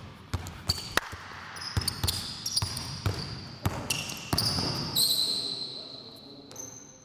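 A basketball dribbled hard on a gym floor, with sharp bounces every half second or so. From about a second and a half in come high sneaker squeaks on the court, the longest near five seconds in.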